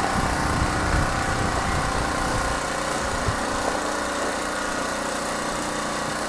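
A steady motor or engine drone with a faint even hum, and some uneven low rumbling over the first few seconds.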